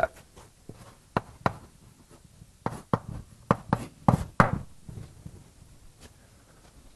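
Irregular sharp taps and knocks of writing on a lecture board, clustered from about one second in to about four and a half seconds in, with a faint scratch between them.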